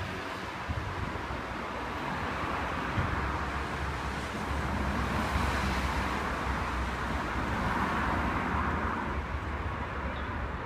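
Street traffic noise: a steady rumble and hiss of passing vehicles, swelling and easing as they go by.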